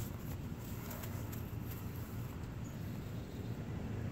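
A freshly caught bluegill flopping in grass and clover, making a few soft pattering slaps and rustles in the first half, over a steady low rumble.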